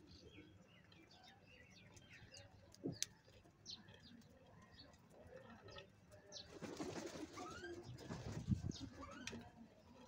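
House crows' wings flapping in a noisy burst lasting about two seconds, starting around six and a half seconds in, as a crow beats its wings beside the feeding bowl. Before it, a scatter of sharp clicks from beaks pecking grain and faint bird calls.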